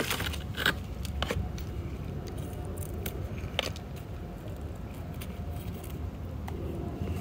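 Dry, dead succulent leaves crackling as they are stripped off the plant by hand: a few short, crisp crackles in the first second and a half and one more about three and a half seconds in, over a low, steady background rumble.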